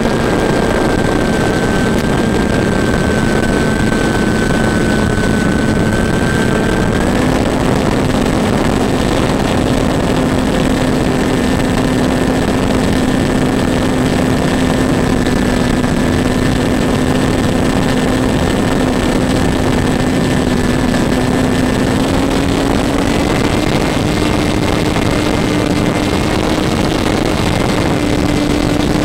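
RC model airplane's motor and propeller running steadily in flight under a heavy rush of air noise. The hum steps up slightly in pitch twice, about a third of the way in and again near the end, as the throttle is raised.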